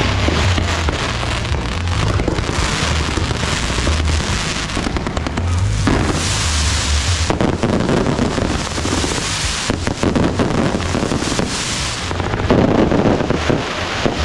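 Fireworks and firecrackers going off in a dense, continuous crackle of rapid pops and bangs.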